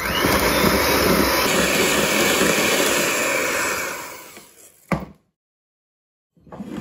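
Electric hand mixer running, its beaters whisking butter, sugar and oil in a glass bowl, then dying away about four seconds in. A single sharp knock follows about a second later.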